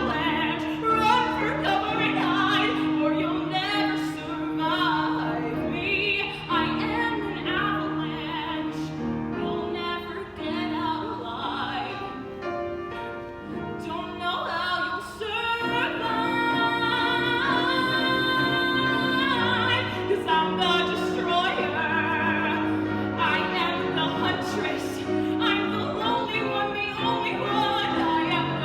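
A female voice singing a musical-theatre ballad over piano accompaniment, holding one long note about halfway through.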